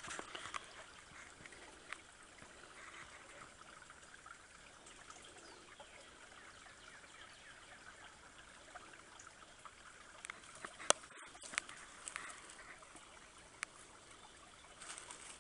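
Shallow creek water trickling faintly, with a few sharp clicks about two-thirds of the way through.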